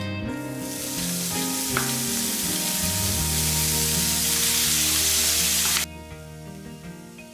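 Food frying in hot oil in a pan: a loud, steady sizzle that cuts off suddenly about six seconds in, with soft background music underneath.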